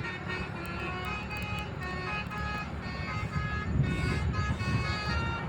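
A bus's telolet horn, a multi-tone musical air horn, playing a melody of short notes at changing pitches over the low rumble of the bus engine. The rumble grows louder about three and a half seconds in.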